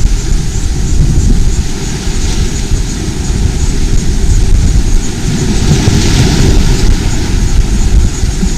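Wind buffeting the microphone over the sea, with surf: a loud, steady rumble under a hiss that swells about six seconds in.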